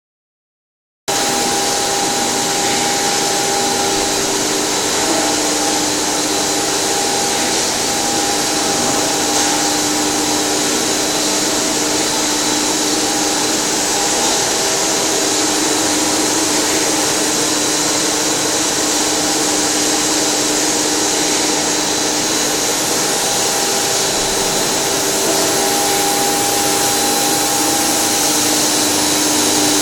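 Steady running noise of a co-extrusion plastic sheet line: electric motors, gearboxes and fans whirring with an even hiss, several held hum tones and a thin high whine. It starts about a second in.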